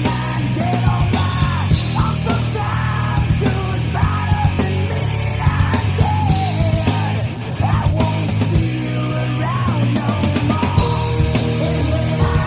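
Grunge rock song played by a full band, with yelled vocals over it; the sound drops briefly about seven seconds in before the band comes back in.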